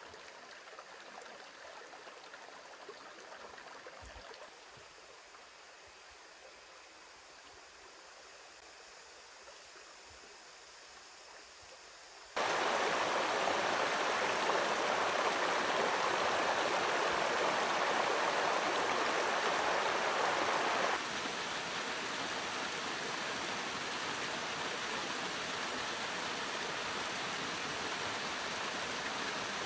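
A shallow rocky forest stream flowing over stones, a soft steady rush at first. About twelve seconds in it turns suddenly to the much louder rush of water pouring over a mossy rock, which drops back to a moderate steady flow about eight seconds later.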